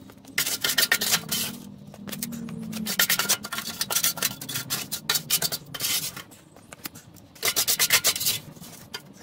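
Stiff, gritty concrete mix being scraped up off the concrete floor with a hand tool and packed in around a steel base plate, in four or five rough scraping spells with short pauses between.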